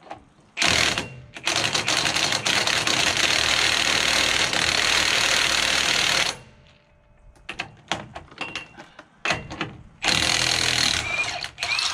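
Impact wrench hammering on a heavy truck's wheel lug nuts to break them loose: a short burst, then a long run of about five seconds, some loose clicks and rattles, and another burst of about two seconds near the end.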